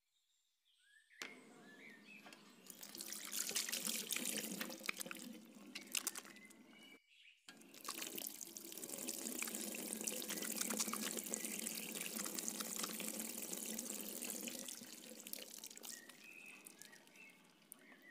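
Water running from a chrome washbasin tap and splashing over hands being washed in the sink. It starts about a second in, cuts out briefly about seven seconds in, and fades near the end. Faint bird chirps sound in the background.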